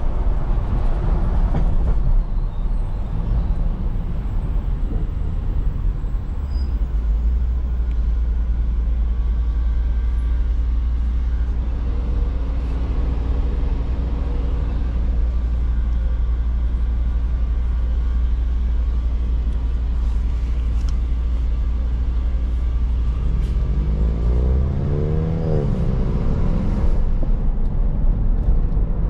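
Mercedes-AMG GT 63 S twin-turbo V8 on the move: a steady low drone while cruising, then near the end the engine revs up and back down once.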